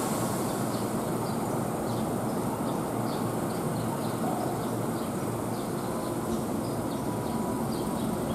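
Steady rumbling noise of a Keihan electric train at the station platform, even in level throughout, with faint short high chirps repeating about every half second.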